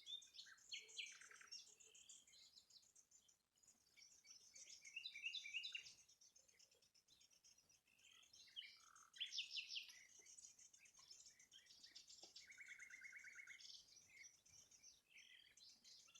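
Faint songbird chorus: several birds chirping and singing in overlapping phrases, with a rapid trill lasting about a second near the end.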